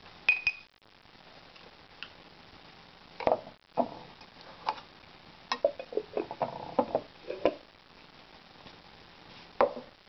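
Metal spoon knocking and scraping against a ceramic bowl of food, an irregular run of clinks with a busy cluster in the middle. A short ringing clink sounds near the start.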